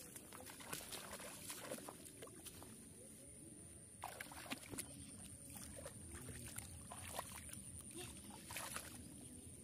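Bare feet and hands splashing and sloshing in shallow muddy paddy water: a scatter of short, soft splashes while wading and groping for fish, over a faint steady high-pitched whine.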